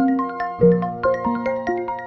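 A phone ringtone playing a melodic tune of short struck notes in quick succession, each note ringing briefly and fading.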